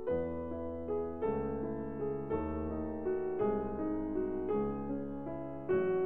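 Background music: a piano playing held chords, a new chord struck about once a second.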